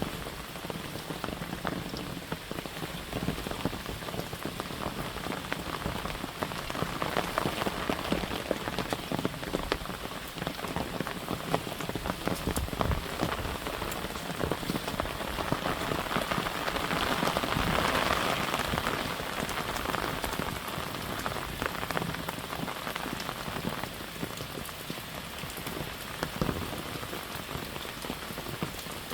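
Steady rain falling, with many separate drops tapping on an umbrella overhead. The rain swells to its loudest a little past halfway, then eases back.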